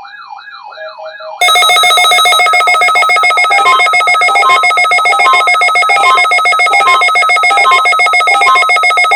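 Weather radio alert alarms set off by the NOAA Weather Radio required weekly test: first a warbling siren tone sweeping up and down about twice a second, then about a second and a half in a much louder, harsh, rapidly pulsing electronic alarm takes over and keeps sounding steadily.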